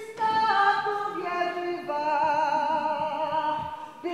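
A woman singing unaccompanied in an operatic style. She holds long notes with a marked vibrato and steps from pitch to pitch, and the phrase fades out just before the end.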